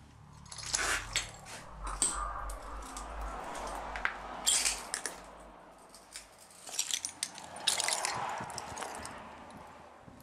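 Footsteps crunching and scraping over rubble and debris, with irregular sharp clicks and crackles and a low rumble in the first half.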